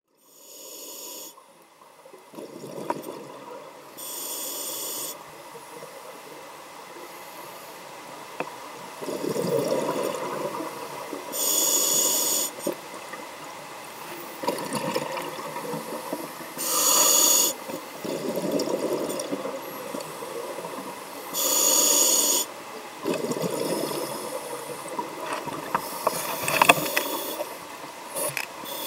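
Scuba diver breathing through a regulator: a short hissing inhale every few seconds, about six in all, each followed by a longer, lower gurgle of exhaled bubbles.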